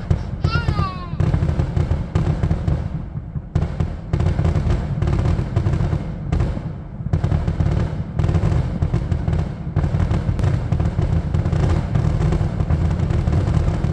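Fireworks going off in a rapid, nearly continuous barrage of bangs and crackles, with a few falling whistles about half a second in.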